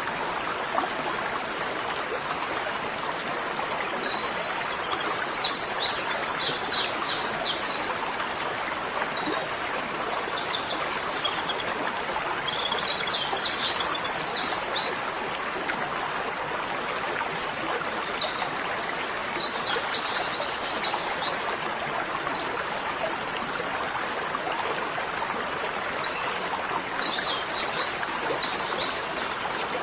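Songbird singing in short, quick phrases of high chirping notes, about five phrases, over the steady rushing of a stream.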